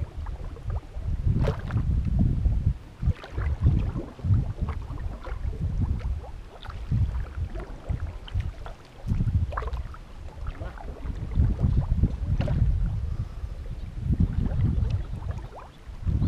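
Wind rumbling in gusts on the microphone, over water sloshing and splashing as a person wades through a flooded rice paddy.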